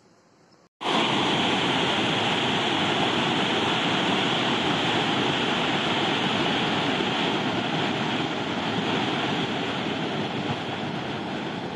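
White-water rapids of a mountain river rushing over boulders: a steady, dense rush of water that starts abruptly about a second in.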